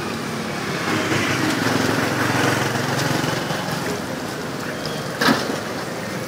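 Youtiao dough sticks sizzling in a large wok of hot oil as they are turned with long chopsticks, over an engine running steadily. A single short knock a little past five seconds in.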